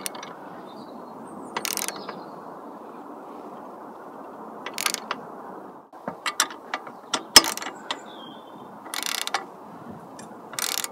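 Hand socket ratchet wrench clicking in short bursts as bolts on a motorcycle stunt cage are tightened, about five bursts. Between them come a few separate clicks and one sharp knock about seven seconds in, over steady background noise.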